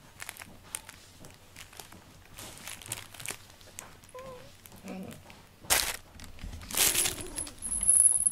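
Close rustling and brushing of cat fur and fabric near the microphone while a cat is stroked, with soft scattered clicks, turning into two loud rustles in the second half as the cat gets up and moves off.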